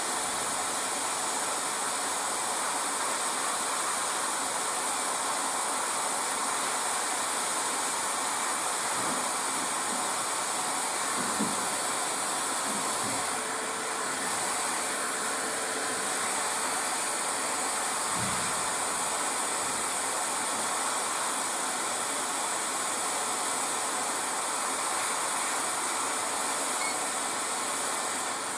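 Hot-air rework station blowing a steady hiss of hot air through its nozzle, desoldering the network controller chip from a laptop motherboard. The airflow cuts off right at the end.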